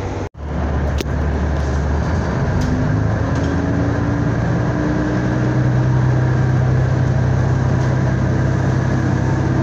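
Joso Line diesel railcar pulling away, heard from inside the car: after a brief break right at the start, the engine's pitch climbs slowly as the train accelerates, growing louder about five seconds in.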